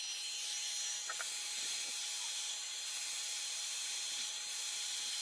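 Handheld hot-air blower running steadily: an even rushing hiss with two thin high whines from its fan, used to warm the vinyl woodgrain wrap on the tabletop.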